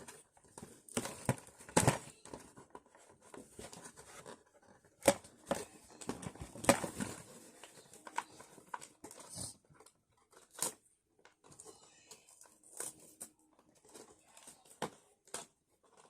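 Packaging being handled and opened: irregular rustling and tearing of box and wrapping, with scattered sharp clicks and taps.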